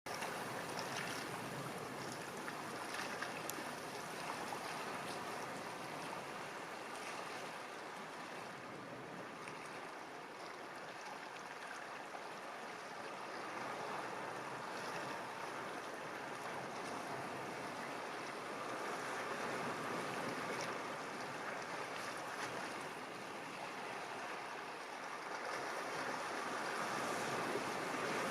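Sea surf washing, an even hiss that swells and eases slowly.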